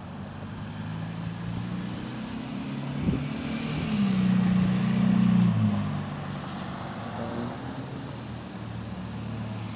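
A motor engine running steadily, rising to its loudest for a couple of seconds around the middle and then easing off, with a single click about three seconds in.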